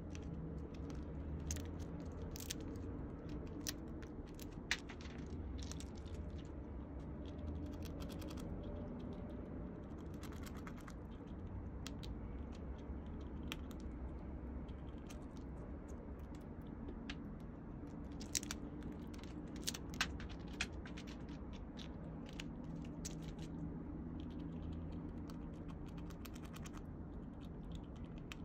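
Young Eurasian red squirrel gnawing and cracking pine nuts from a pine cone: irregular small crunching clicks, a few louder than the rest, over a steady low hum.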